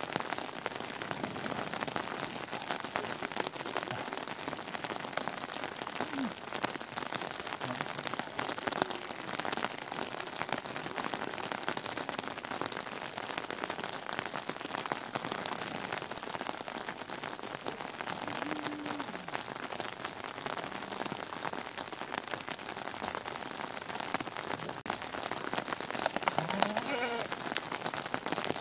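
Steady heavy rain falling, with a few faint bleats from the flock scattered through it and a louder rising bleat near the end.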